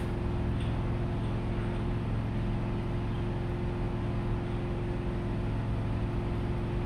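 Steady mechanical hum with a constant low tone over even background noise, unchanging throughout.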